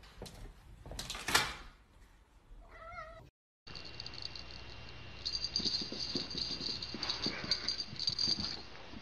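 A domestic cat meows once, briefly, with a wavering pitch, about three seconds in, after a short louder noise about a second and a half in. The rest is a steady hiss with faint light taps.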